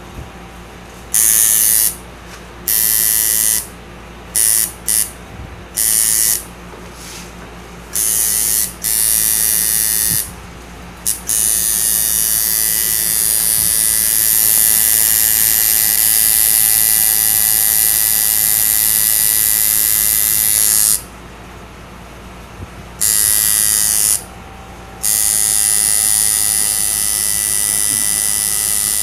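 Electric tattoo machine buzzing in repeated short bursts as it is switched on and off, then running steadily for about ten seconds, stopping, and starting again near the end. A steady low hum runs underneath.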